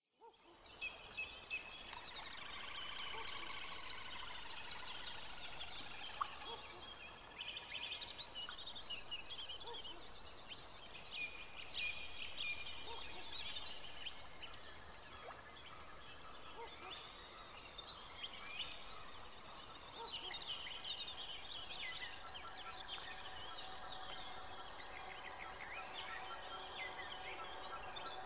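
Several small birds singing and calling at once: quick high trills and chirps overlapping over a faint steady outdoor background, with a faint low hum joining in the second half.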